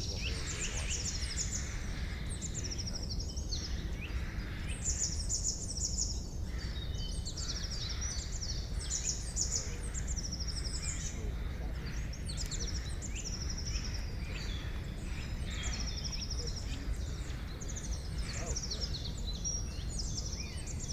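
Several songbirds singing over one another in a forest chorus, with many high, fast trills and short chirps throughout, over a steady low rumble of background noise.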